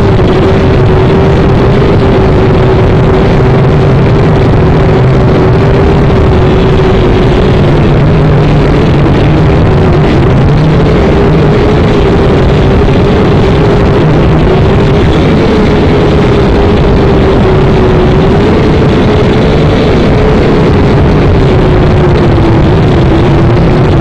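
Small camera drone flying, its motors and propellers close to the microphone: a loud, unbroken buzz with a steady hum that wavers slightly in pitch.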